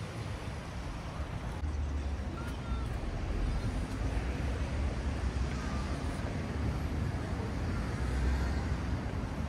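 Outdoor street ambience: a steady rumble of road traffic, swelling a little in the second half.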